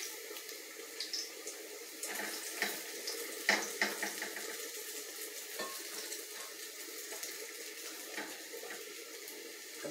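Jiló and sardine fritters sizzling steadily as they fry in a pan of oil, with a few light clicks of a fork against the pan a couple of seconds in.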